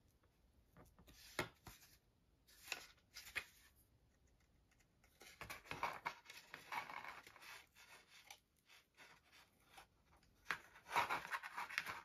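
A pointed weeding tool being pushed and twisted through a paper craft sign to punch a hole: faint, uneven scratching and scraping of paper, with a few small clicks and rustles of handling.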